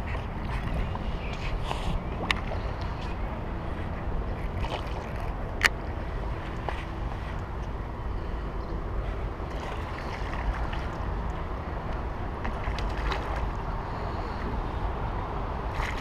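Steady outdoor rushing noise of wind on the microphone and water, with two sharp clicks, one about two seconds in and a louder one nearly six seconds in.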